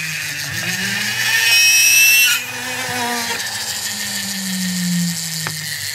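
Small rotary drill running, its bit boring a hole through thin brass sheet, with a louder, harsher cutting sound about a second and a half in. The motor's pitch rises and falls as its speed changes, and a single click comes near the end.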